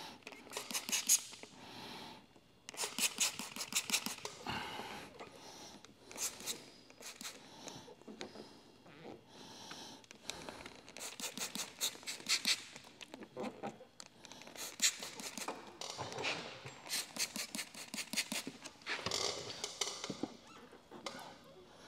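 Trigger spray bottle spritzing solution in short bursts and a squeegee squeaking as it works wet paint protection film down onto a bumper, in irregular clusters of sharp hissing and squeaking.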